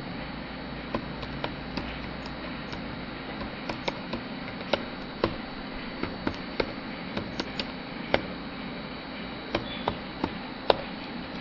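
Computer keyboard being typed on: irregular single keystroke clicks, one to three a second, with a short pause near the end, over a steady low hum.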